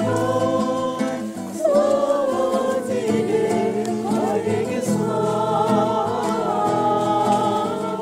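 A mixed group of men's and women's voices singing a song together, accompanied by a strummed six-string acoustic guitar.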